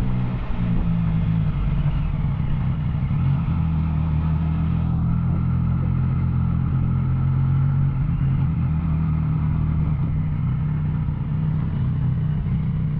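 Motorcycle engine running at steady revs: a Yamaha Tracer 900's three-cylinder engine through an Arrow exhaust.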